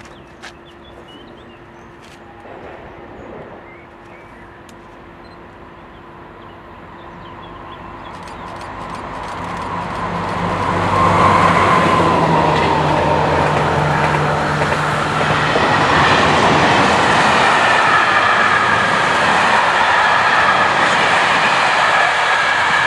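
A train approaching and passing close by: faint at first, growing louder over a few seconds, then a loud steady rush of rolling wheels with a high steady whine over it.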